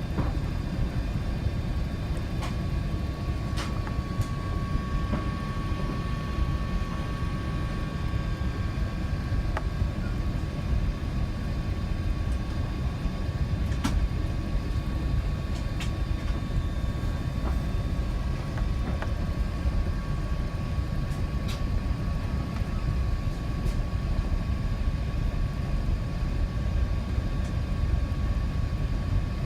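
Steady low rumble inside a moving vehicle, with a faint steady hum over it and a few light clicks.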